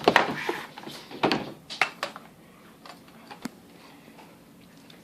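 Cardboard box and packaging being handled: a cluster of knocks and rustling in the first two seconds, then a few scattered clicks.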